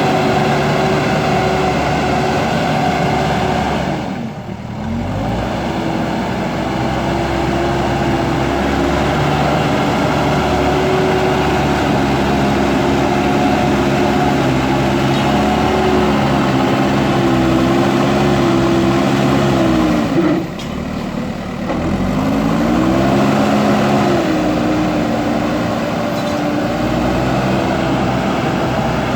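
JCB backhoe loader's diesel engine running hard under load, its pitch shifting as the load changes. Twice it briefly dips and then climbs back up.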